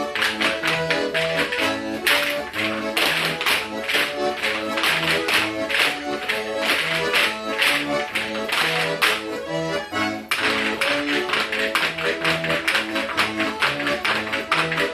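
Accordion playing a lively Russian folk dance tune over a steady, sharp tapping beat, with no singing.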